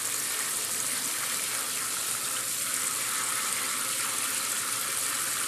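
Tap water running steadily over quinoa in a strainer, rinsing the grain.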